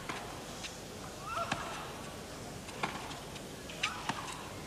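Tennis rally: rackets striking the ball, a crisp crack about once a second, with short rising squeaks just before two of the hits.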